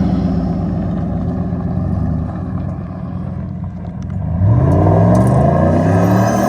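Vehicle engine running at a steady speed, then revving up about four seconds in and holding at the higher speed.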